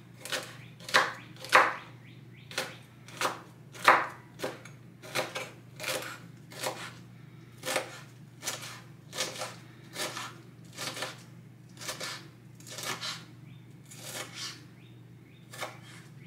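Kitchen knife chopping a serrano chile on a wooden cutting board: steady knocks of the blade on the board, about one and a half a second, stopping shortly before the end. A faint low hum runs underneath.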